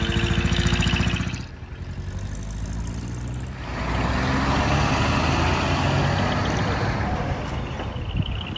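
Diesel truck engines running as trucks drive slowly past one after another. The sound changes abruptly about a second and a half in and again about three and a half seconds in, with a steady held tone over the engine in the first second or so.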